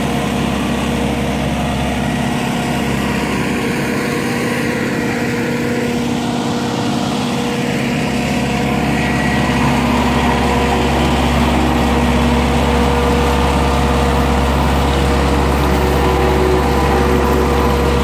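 Case road roller's diesel engine running steadily. About halfway through its low hum gets deeper and a little louder.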